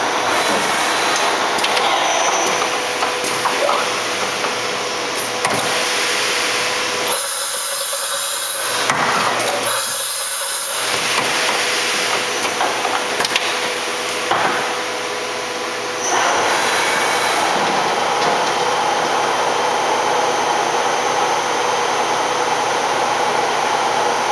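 Shizuoka B-15V CNC vertical machining center running, with its 24-tool chain-type automatic tool changer magazine indexing: a continuous mechanical whir and rubbing. For a few seconds partway through it turns thinner and hissier, and about sixteen seconds in it grows louder again.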